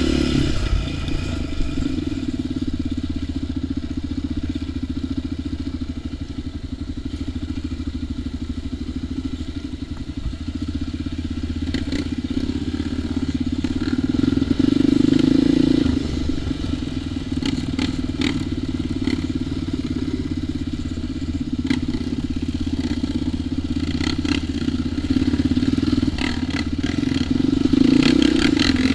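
ATV engine running steadily, swelling louder with throttle about halfway through and again near the end, with scattered knocks and clatter over rough ground.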